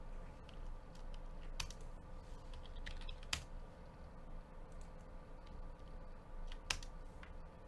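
Irregular typing and clicking on a computer keyboard, with a few sharper key clicks, over a faint steady hum.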